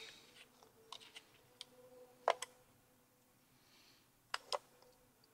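A handful of light, sharp clicks and taps, several in quick pairs, from small metal parts and screws of a partly dismantled Bolex film camera being handled and set down.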